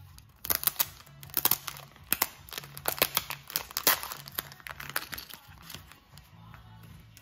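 Silver foil blind-bag pouch being torn open and crinkled by hand: a quick run of sharp, crackling rustles from about half a second in until about five seconds, over soft background music.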